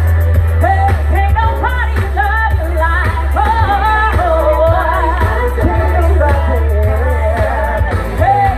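Live gospel song: a singer's voice over a band with a steady, heavy bass.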